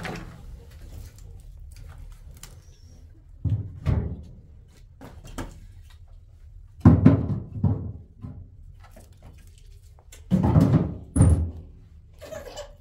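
Firewood being loaded into a sheet-metal wood stove: pieces of wood knock and clunk against the metal firebox in three short clusters of thuds.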